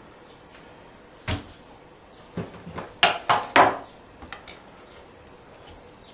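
A few short knocks and taps on a wooden cutting board as a herring is handled and laid down for filleting. The loudest is a quick run of three knocks about three seconds in.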